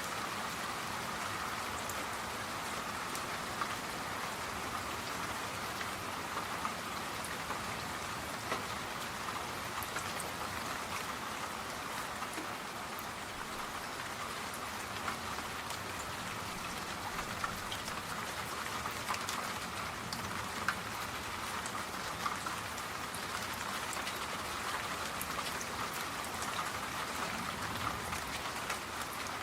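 Steady rain falling on a surface, an even hiss with scattered droplet ticks.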